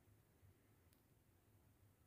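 Near silence: a faint low hum, with one soft tick about a second in.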